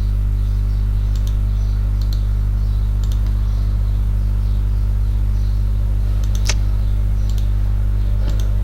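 Steady low electrical hum on the recording, with a few faint clicks from the computer's keys and mouse, one a little louder about six and a half seconds in.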